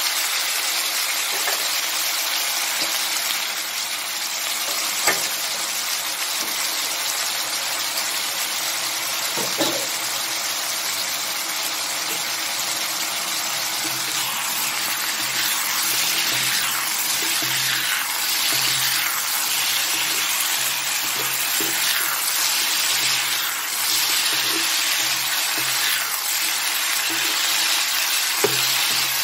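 A broccoli and pork belly stir-fry sizzling in a hot wok, with a steady frying hiss. From about halfway on, a spatula stirs and scrapes the food in repeated strokes, with a few light clicks against the pan.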